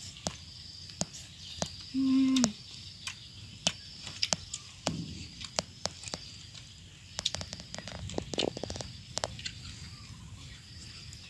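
Small clicks and cracks of cooked crab shells being picked apart and eaten by hand, over a steady high chirring of insects. About two seconds in, a short hummed voice sound.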